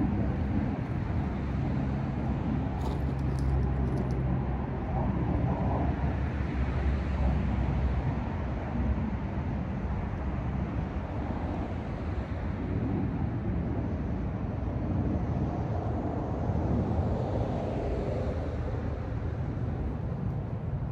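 Steady outdoor background noise: a low rumble with a hiss above it, rising and falling a little in loudness, with no distinct event.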